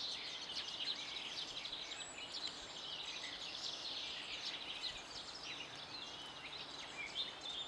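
Several songbirds singing and calling together: a dense, overlapping mix of short chirps, trills and whistled glides that goes on throughout.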